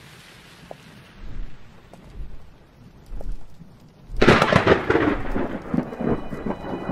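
Thunderstorm sound: a faint rain hiss with three low thuds about a second apart, then a loud thunderclap about four seconds in that rumbles away over the next two seconds.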